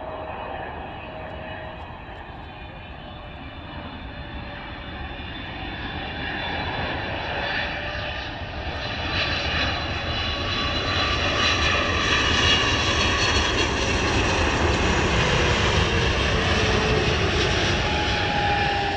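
Boeing 777-300ER's twin GE90 turbofans on landing approach, growing steadily louder as the jet comes in low, with a high fan whine over the engine noise. Near the end a tone slides down in pitch as the airliner draws level and passes.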